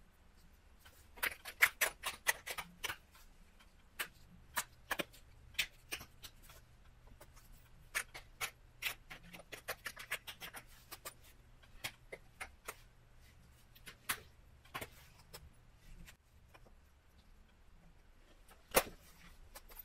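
Wyoming tiger chert knife point being pressure-flaked with a hand-held pressure flaker: irregular sharp clicks as small flakes snap off the edge. A quick run of clicks comes about a second in, then single clicks spaced about a second apart, with one louder click near the end.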